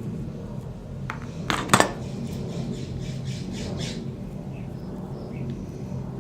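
A utility knife scoring and working the rubber outer jacket of an extension cord: a sharp double click, then a run of short rasping strokes, about three a second. Faint bird chirps near the end over a steady low hum.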